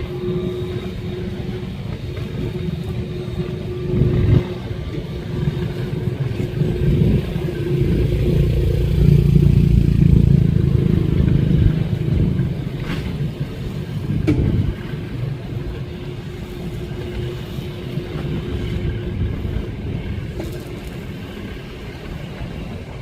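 Speedboat engines running with a low rumble that swells louder for a few seconds about a third of the way in, then eases off. A few brief knocks sound along the way.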